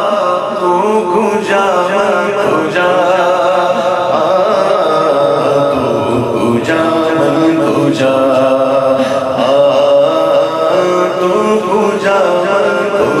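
Man singing a naat unaccompanied into a microphone over a PA system, drawing out long, bending melodic phrases without pause.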